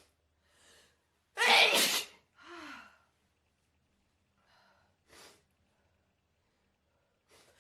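A person with a really bad cold sneezes once, hard, about a second and a half in. A short falling sound from the voice comes just after. A few faint breaths follow later, the last one building toward the next sneeze near the end.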